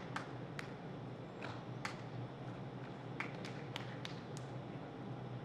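Gymnast's feet and hands tapping on a balance beam during a routine: about ten sharp taps, scattered, with a quick run of several near the middle, over a steady low hum.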